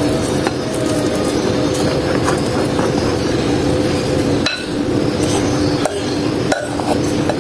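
Wooden spatula stirring flour into batter in a glass mixing bowl, with a few sharp knocks and clinks of glass on glass, mostly in the second half, as flour is tipped in from a second glass bowl. A steady low hum runs underneath.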